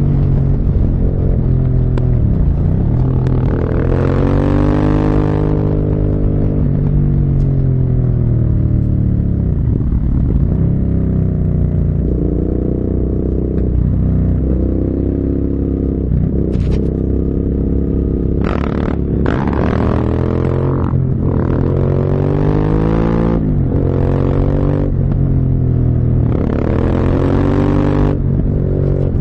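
Motorcycle engine on a ride, its revs rising and falling again and again as it accelerates, shifts and slows. A rush of wind noise builds about four seconds in and again through the last ten seconds.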